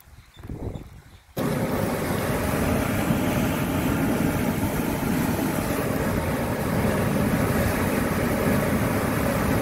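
Water rushing and churning steadily through a narrow concrete channel, a loud even noise that starts abruptly about a second and a half in; before it, only a faint low sound.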